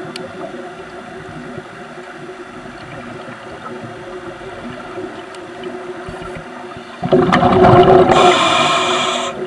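Underwater ambience picked up by the camera, a steady low hum, broken about seven seconds in by a sudden loud rush of bubbling lasting about two seconds that ends in a hiss, typical of a scuba diver's breath through the regulator.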